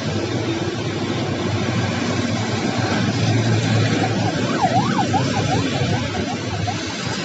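Steady street traffic noise. About four seconds in, a brief warbling siren rises and falls rapidly for a couple of seconds.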